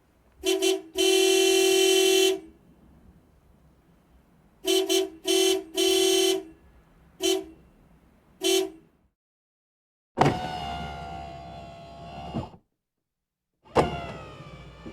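Car horn honking in a rhythm of toots: a short toot and a long blast, then several short toots and another long blast. Near the end come two longer sounds, each starting sharply and sinking slightly in pitch.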